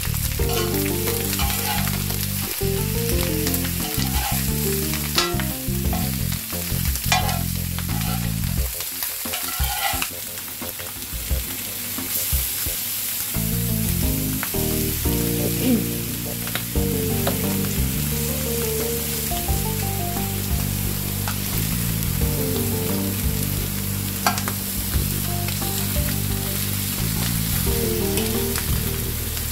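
Chicken pieces and vegetables sizzling on a hot flat tawa griddle. A metal slotted spoon scrapes and clinks against the griddle a few times as they are turned.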